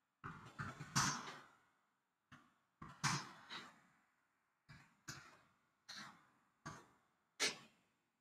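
Computer keyboard keystrokes: irregular clusters of sharp clicks, each with a short decay, as a command is typed. The loudest click comes about seven and a half seconds in.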